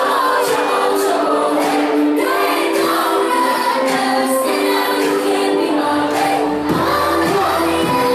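Trap/electronic dance music played in a live DJ set: a breakdown with singing over held chords and no bass, the deep bass and beat coming back in about six seconds in.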